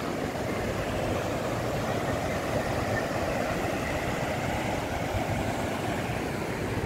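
Steady rush of ocean surf breaking on a sandy beach, with wind on the microphone.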